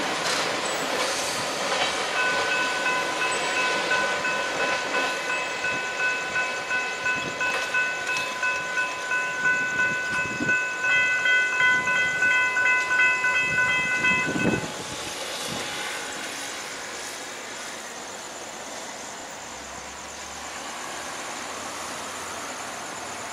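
Railroad grade-crossing warning bells ringing in a steady, pulsing ring while the crossing gates rise behind a departing freight train, with a second bell tone joining near the middle. The ringing cuts off suddenly about two-thirds of the way through, which means the crossing has cleared. After that comes the steady noise of road vehicles moving over the crossing.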